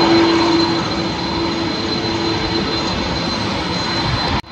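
Airbus A330-200's twin turbofan engines running at taxi power: a steady rushing noise with a high whine over a lower hum. The sound cuts out briefly near the end.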